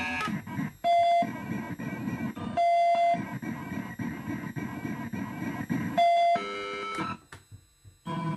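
Circuit-bent Pikachu plush doll's sound chip glitching through a mannequin-torso Sound Mutilator effects box and amplifier: three short steady electronic beeps with buzzy, crackling noise between them. The sound cuts out briefly near the end, then starts again.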